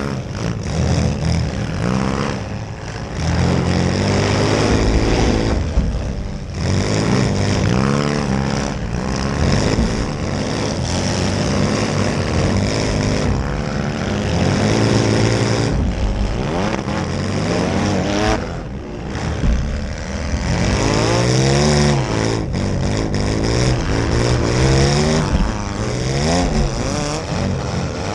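Several demolition derby cars' engines revving up and down hard and repeatedly as the cars drive at each other, with a few sudden bangs from collisions.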